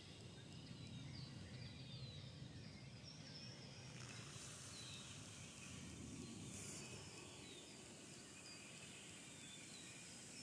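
Near silence: quiet woodland ambience, with faint, brief bird chirps scattered over a low steady rumble.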